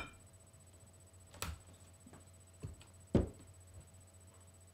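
A few light knocks and clinks from glass mixing bowls and an electric hand mixer being handled, the clearest about one and a half seconds in and the loudest about three seconds in, over a faint steady hum.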